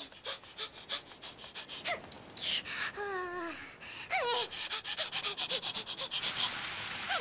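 A small child's quick running footsteps in hard-soled shoes on stone floor and stairs, about four steps a second. A few short breathy vocal sounds from the child come midway.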